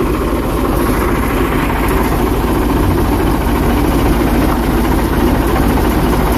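Diesel tractor engine idling steadily with an even low rumble.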